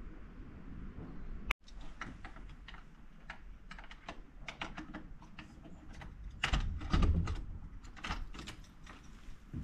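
A cabin door lock and handle being worked by hand: many small, irregular clicks and rattles, with a heavier knock about seven seconds in.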